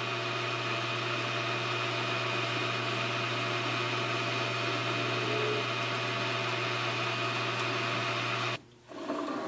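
Metal lathe running, its spindle turning as a carbide-insert tool takes a light facing cut to bring a small shim washer down to size: a steady machine hum. It cuts off suddenly about eight and a half seconds in, followed by a light knock or two.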